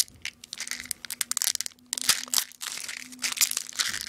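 Plastic snack packaging crinkling and crackling in irregular bursts as it is worked and torn open by hand, over a faint steady hum.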